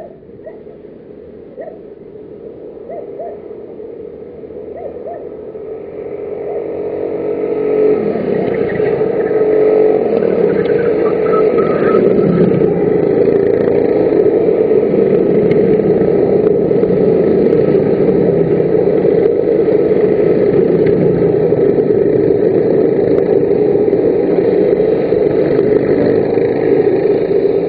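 Racing kart engines: faint short engine notes in the first few seconds, then the sound builds from about six seconds in as the karts come round and stays loud, several engines running together.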